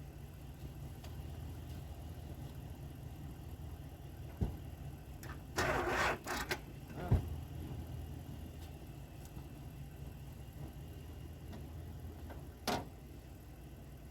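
An engine idling steadily, with a few knocks and clicks and a short noisy burst about six seconds in.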